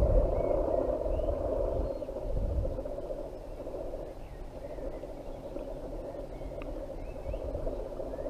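Wind buffeting the microphone, strong at first and easing off about three seconds in, over a steady rushing noise, with faint bird chirps.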